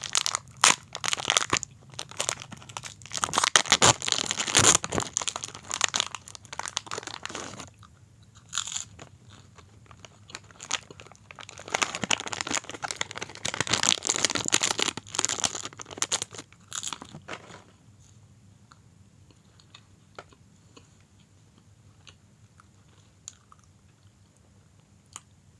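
Close-miked chewing of the crunchy Nabati Siip snack: two long spells of loud crunching, each several seconds, with a few lone crunches between them. The last several seconds are much quieter, with only a few small clicks.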